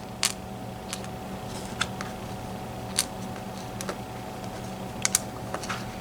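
Small, sharp metal clicks, about eight scattered through, as tiny lock pins and tools are handled while a Mul-T-Lock MT5+ cylinder is taken apart, over a steady low hum.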